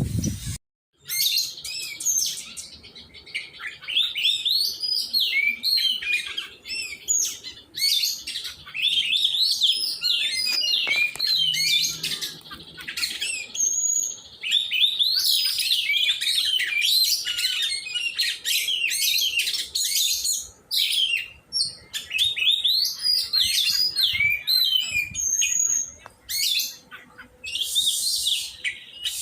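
Oriental magpie-robin (kacer) singing: a long, fast run of varied chirps and whistles, broken by a few short pauses.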